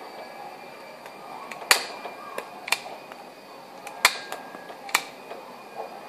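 A 110 punchdown tool seating Cat 6 wires into the insulation-displacement slots of a Siemon socket: four sharp clicks about a second apart, with a few fainter ticks between them.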